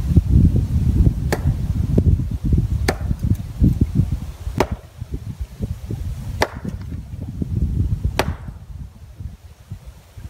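An axe splitting firewood on a chopping block, five sharp strikes about two seconds apart. Wind rumbles on the microphone underneath and eases near the end.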